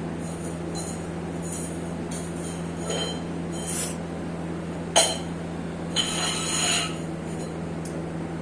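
Handling of a hair oil bottle and its packaging: a few scattered small clicks and clinks, the sharpest about five seconds in and a short rustling clatter a second later, over a steady low hum.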